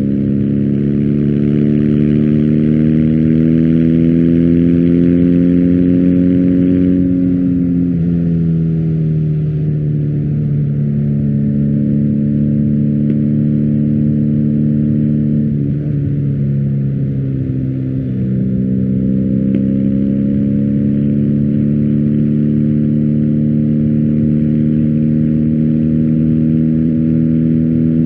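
BMW R1250GS boxer-twin engine through an Akrapovic exhaust, running steadily with slow changes in engine speed. The pitch climbs gradually for several seconds, drops about eight seconds in, and holds. It dips again just past the halfway point, then rises and settles.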